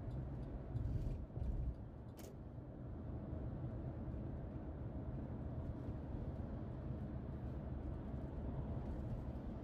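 Steady low road and engine rumble of a car cruising on a highway, heard from inside the cabin. It swells briefly about a second in, and there is a single short click just after two seconds in.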